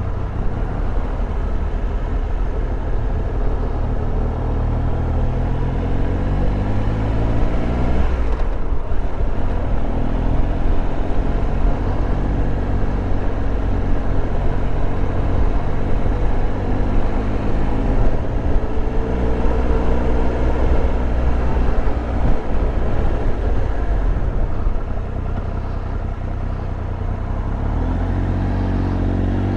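Triumph Tiger Explorer 1200's three-cylinder engine heard from on board while riding slowly, revs repeatedly rising and easing off through gear changes, with a brief drop about eight seconds in. Wind and road noise run under it.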